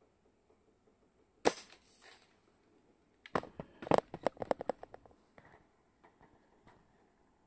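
A single shot from a VSR-10 spring-powered bolt-action airsoft rifle, a sharp crack about a second and a half in with a short ring, the BB passing through a chronograph. About two seconds later comes a quick run of loud mechanical clicks and clacks, then a few faint ticks.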